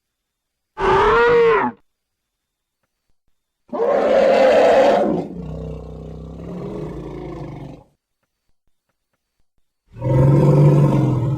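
Made-up creature roars, sound effects for a horned, ceratopsian-like beast, with dead silence between calls. About a second in comes a short call that rises and then falls in pitch. Near four seconds a longer roar trails off into a lower rumble, and another deep roar starts near the end.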